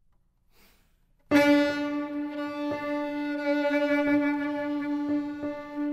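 Violin comes in suddenly about a second in and holds one long, steady, fairly low bowed note, with a few soft knocks at intervals.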